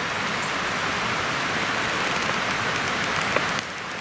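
Filtered water streaming out of a Sawyer water filter with a steady hiss, cutting off about three and a half seconds in.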